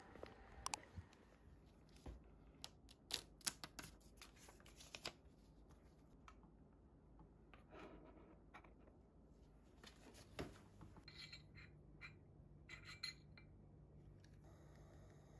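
Faint, scattered clicks and taps of small objects handled on a desktop: a boxed tear-off calendar being stood up and an incense stick being set into its holder.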